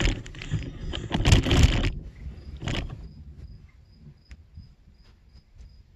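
Insects chirping outdoors, a short high chirp repeating about three times a second. A louder rustling noise covers the first two seconds, with a shorter one soon after.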